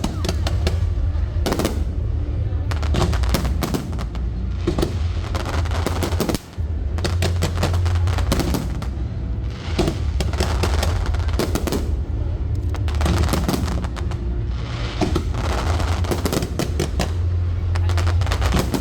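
Fireworks display: aerial shells and barrages going off in rapid, irregular bangs and crackles, one on top of another, over music with a heavy steady bass.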